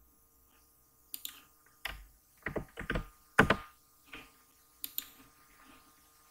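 Computer keyboard keystrokes: about a dozen separate clacks at uneven intervals, the loudest about three and a half seconds in.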